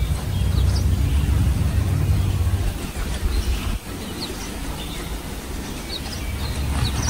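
Low rumble of wind buffeting the microphone, strong for the first few seconds, dropping off suddenly and returning near the end, with small birds chirping.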